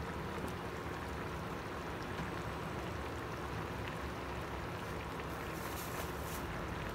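Tomato and white-bean stew simmering in a stainless-steel pan, a steady soft bubbling.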